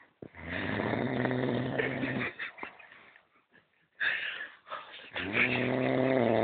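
A man snoring: two long, loud, low fluttering snores about three seconds apart, with a shorter breathy sound between them.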